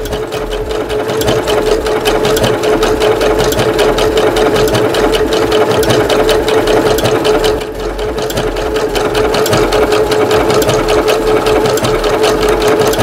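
Domestic sewing machine running at a steady speed, sewing an overcast stitch along a fabric edge with an overlock presser foot, its needle strokes rapid and even. It eases off briefly just past halfway, then runs on.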